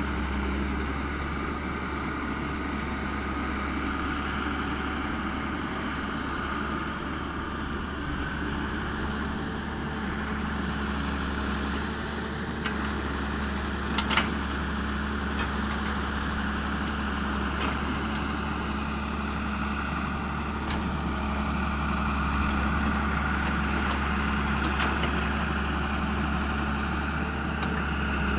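Hyundai wheeled excavator's diesel engine running steadily under digging load, with a few light clicks and one sharper knock about halfway through.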